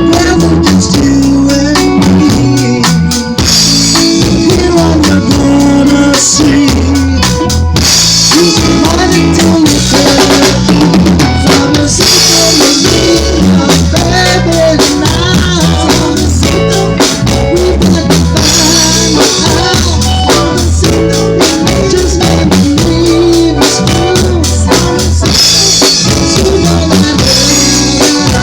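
A band playing music: a drum kit keeps a steady beat over a bass line and other pitched instruments, with cymbals swelling every few seconds.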